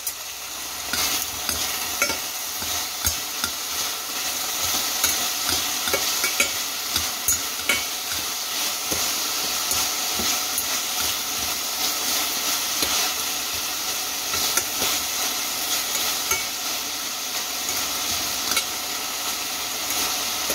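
Beef steak cubes and vegetables sizzling in a hot stainless steel pan, with steady frying hiss, while metal tongs and a spoon stir and toss them, clicking and scraping against the pan many times.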